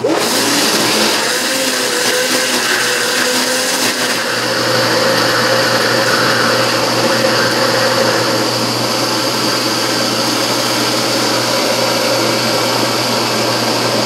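Countertop blender motor running steadily, churning a thick cornmeal cake batter; its tone shifts slightly about four seconds in.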